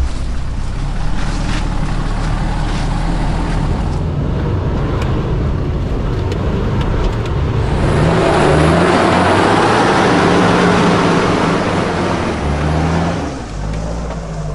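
Engine of a 4x4 off-road SUV working under load as it climbs a rough forest trail. It revs up and runs harder from about halfway through, then eases off near the end.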